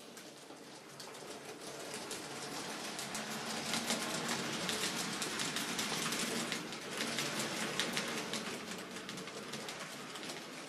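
N-scale model train running through a curve, its wheels rattling in fast clicks over the rail joints and points. It grows louder toward the middle and fades near the end.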